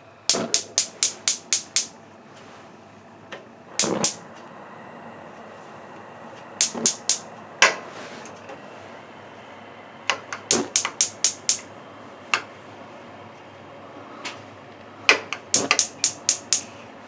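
Propane gas range's spark igniter clicking in quick runs of several sharp clicks, about six a second. There are five runs with pauses between them as a burner is being lit.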